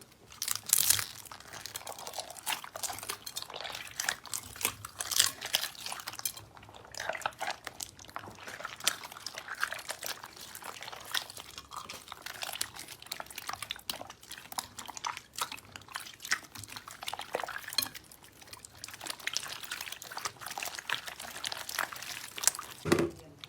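Slime being worked by hand, with a continuous run of irregular wet squelches, clicks and pops.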